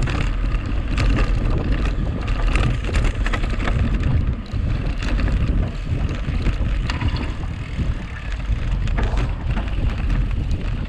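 Wind buffeting the microphone of a camera riding along on a mountain bike at race speed, with tyre noise and frequent sharp rattles and knocks from the bike over rough ground.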